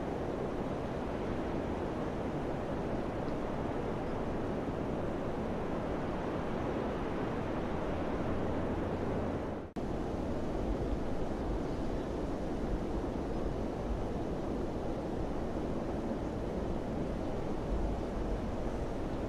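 Steady wind blowing, a dense rushing noise with a low rumble beneath it, which cuts out for an instant about ten seconds in.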